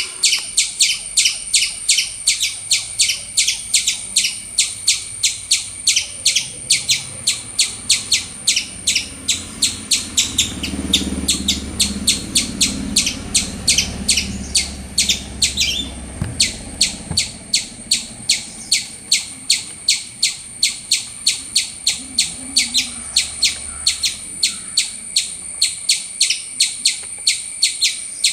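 Squirrel repeatedly calling with short, sharp, high-pitched chirps, about three a second, with only a brief break a little past halfway.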